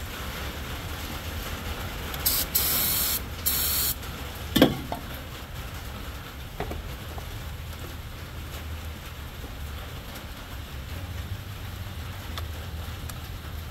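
Aerosol can of brake cleaner sprayed in two short bursts, about two and three and a half seconds in, to clean the end of a wire connector. A sharp click follows just after, the loudest sound, over a low steady hum.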